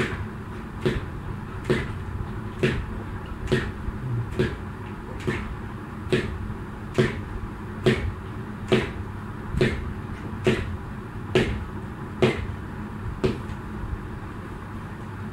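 Jump rope skipping: the rope smacks the floor and the feet land in a steady rhythm, one sharp smack about every second with softer knocks between, over a steady low hum. The smacks stop near the end.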